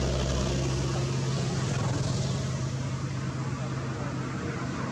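Steady low engine hum, with a deeper rumble that drops away about a second in, over a constant wash of outdoor noise.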